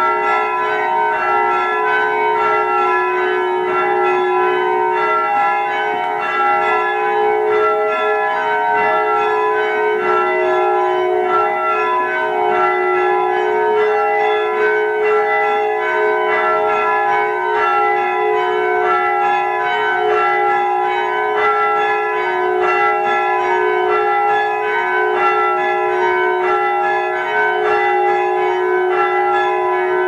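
Church bells rung full-circle by hand on ropes with striped sallies, striking one after another in a steady, continuous sequence of change ringing.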